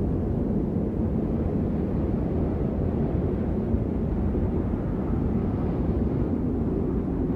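Steady, low rumbling ambience noise, an even wash without music, voices or distinct events.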